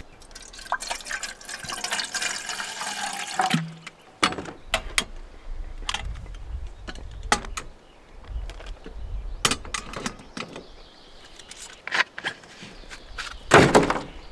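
Water poured from a plastic bottle into an aluminium camp pot, a hissing pour whose pitch falls before it stops about three and a half seconds in. Then clinks and knocks of aluminium camp-stove parts and kettle being handled, with a loud clatter near the end.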